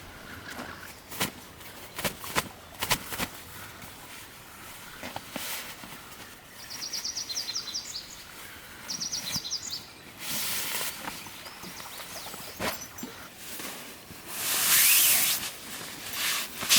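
Scattered clicks and knocks of camp handling, with a small bird giving a short rapid trill twice near the middle. A loud rustling swish comes about three quarters of the way through.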